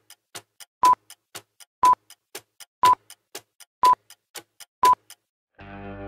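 Clock-tick countdown sound effect: sharp ticks about four a second, with a short beep on every second, five beeps in all. The ticking stops about five seconds in and music starts just before the end.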